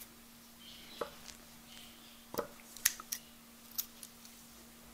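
Scissors cutting woollen yarn: a handful of faint, sharp snips and clicks of the blades spread over a few seconds, over a faint steady hum.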